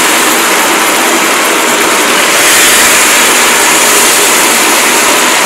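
Steady, loud rushing noise of an electric fan running close to the microphone.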